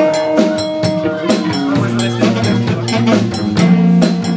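Live rock band playing an instrumental passage: electric guitar and electric bass over a drum kit keeping a steady beat.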